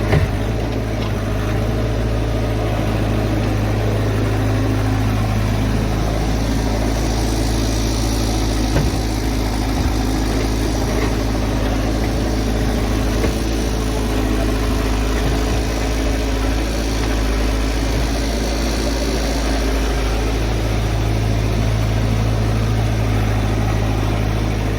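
Tata Hitachi amphibious excavator's diesel engine running steadily, a continuous low hum with a few brief knocks.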